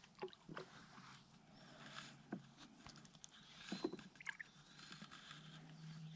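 Near quiet: faint scattered clicks and knocks of handling, with a faint low steady hum coming in about five seconds in.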